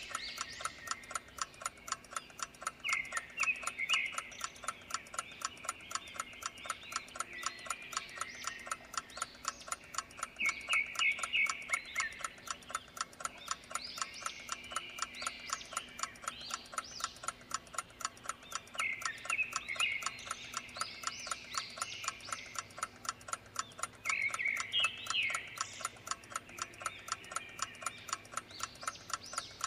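Clock ticking steadily, about two to three ticks a second, under a nature background in which short bursts of high chirping calls come four times.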